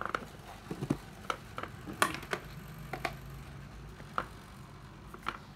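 Irregular clicks and light knocks of hard plastic tools and battery packs being handled and set down on a table, the sharpest knock about two seconds in.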